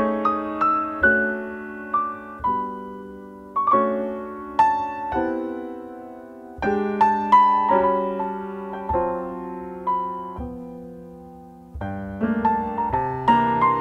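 Background music: a solo piano playing a slow, gentle piece, with single notes and chords struck and left to fade.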